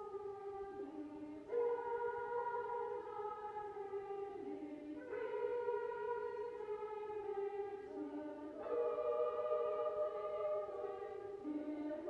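Treble choir singing a slow carol in long held notes, with new phrases entering about every three to four seconds.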